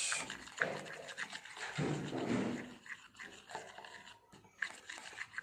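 A thin stick stirring glue and watercolour in a small plastic container, scraping irregularly with scattered light ticks against the plastic.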